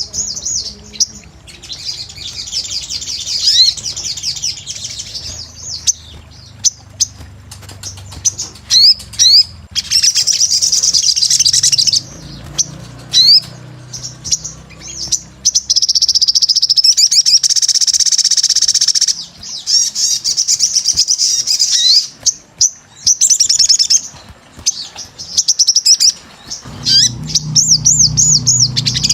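Crimson sunbird (sogon) singing, a fast high-pitched twittering in bursts of a few seconds with short breaks between phrases.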